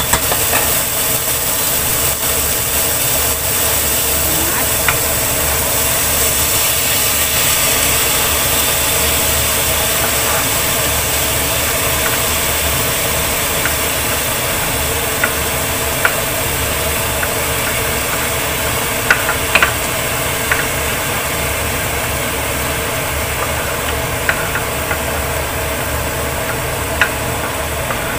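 A steady machine whir and rush, with several light clinks and scrapes of a spoon pushing tomato pieces off a wooden cutting board into a steel pot.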